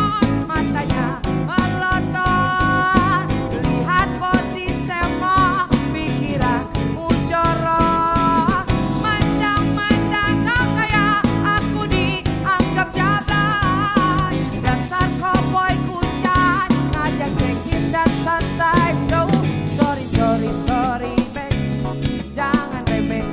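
A band of keyboard, drum kit, electric bass and electric guitar playing an upbeat song, with a woman singing the lead.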